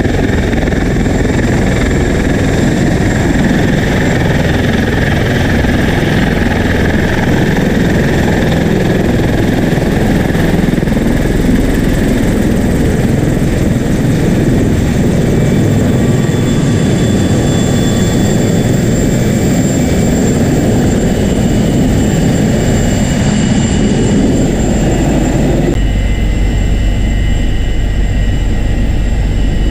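Loud, steady rotor and turboshaft engine noise of MH-53E Sea Dragon heavy helicopters running on a flight deck. About 26 seconds in the sound turns duller and deeper, heard from inside a helicopter cockpit.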